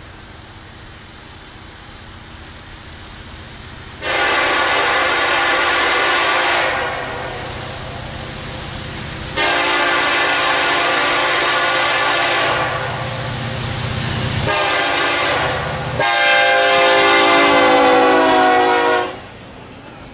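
Air horn on the lead EMD SD70ACe diesel locomotive sounding four blasts, long, long, short, long, the grade-crossing signal, over the low rumble of the approaching freight train. The last blast is the loudest and lower in pitch as the locomotive passes close by; after it the horn stops and the rolling train goes on.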